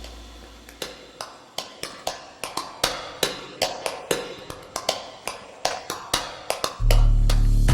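A run of sharp taps, several a second, then loud music with heavy bass and guitar comes in near the end.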